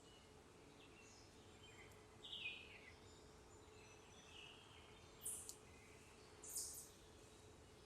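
Faint, scattered bird chirps and calls, with a louder downward-sliding call about two and a half seconds in and two brief high-pitched sounds later on, over a steady low hum.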